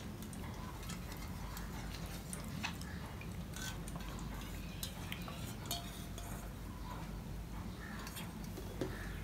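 Hand mixing rice with runny lentil dal on a stainless steel plate: soft wet squelching with scattered sharp clicks as the steel bowl touches the plate, over a steady low hum.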